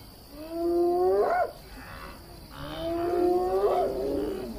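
Spotted hyena whooping: two long calls, each held low and then rising sharply in pitch at the end, with a third beginning near the end. The hyena is calling its clan for support against intruders at a kill.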